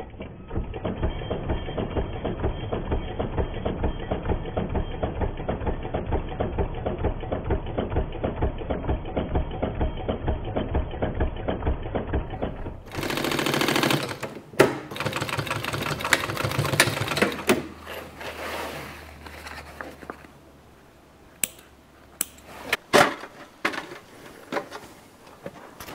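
Walking-foot sewing machine running at a steady pace, top-stitching a zip down, with a fast even rhythm of needle strokes. It stops abruptly about halfway through, followed by handling noise and scattered clicks and knocks.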